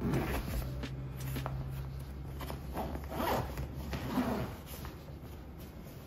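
A zipper being pulled in a few separate strokes, likely on a bag or clothing while getting ready for the gym.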